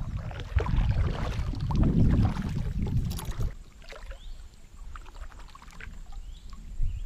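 Kayak paddle strokes: water splashing and dripping off the double-bladed paddle, over a low rumble that fades about three and a half seconds in. After that, only scattered drips remain.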